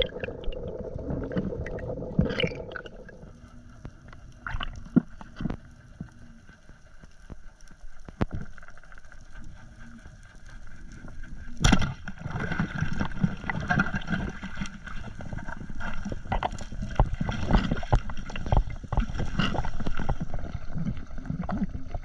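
Underwater sound through a diving camera's housing: water rushing and rumbling past as the diver swims, with scattered clicks and crackles. A single sharp knock stands out about twelve seconds in, after which the rushing and crackling grow louder.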